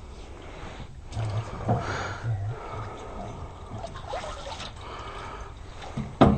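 Water dripping and sloshing in a boat, with faint knocks, and one sharp knock near the end.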